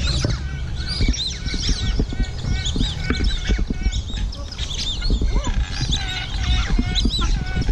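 A flock of whistling ducks calling together: many short, high, whistled notes overlapping continuously.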